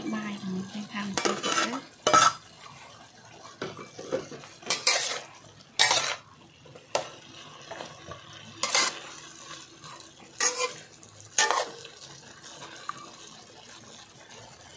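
Metal spatula scraping and knocking against a metal wok while stir-frying meat and greens, in irregular strokes every second or two, with fewer near the end, over a faint sizzle.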